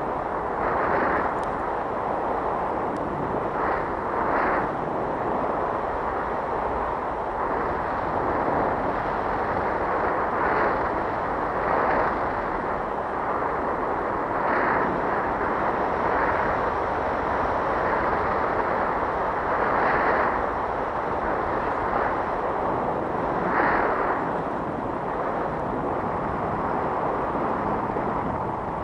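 Wind rushing over the camera's microphone in paragliding flight: a steady rush with irregular gusts swelling every few seconds.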